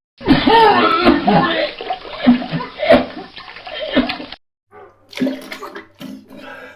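A person retching and heaving, with liquid splashing into water as they vomit. The sound cuts off abruptly a little past four seconds in, and a second, quieter clip of retching begins shortly after.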